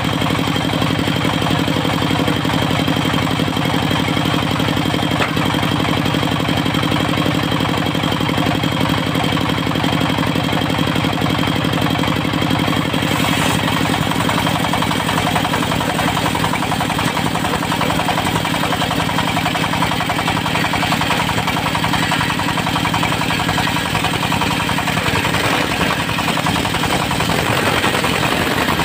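Diesel engine of a portable circular-saw sawmill running steadily at a constant speed.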